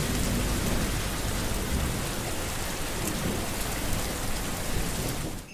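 Heavy rain falling steadily, a dense hiss with a deep low rumble beneath it, cutting off suddenly at the end.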